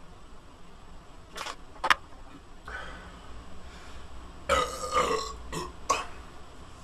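A man burping: one loud, drawn-out belch a little past halfway, with a few short sharp clicks before and after it.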